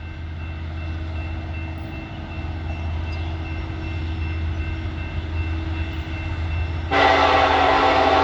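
Steady low rumble, then about seven seconds in a Nathan K5LLA five-chime locomotive air horn on a Norfolk Southern SD70ACe starts suddenly and loudly, a sustained chord of several tones that carries on past the end.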